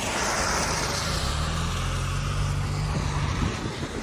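A car driving by on wet pavement: the hiss of its tyres on the wet road swells at the start and slowly fades, with a low engine hum in the middle.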